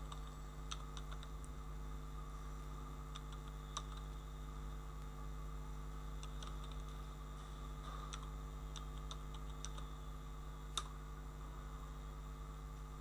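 Computer keyboard keystrokes, sparse and irregular, with one sharper key press about eleven seconds in, over a steady electrical hum.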